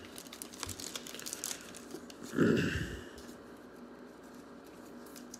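Foil trading-card pack wrappers crinkling and cards being handled and shuffled, a run of small crackles, with one brief, louder low sound about halfway through.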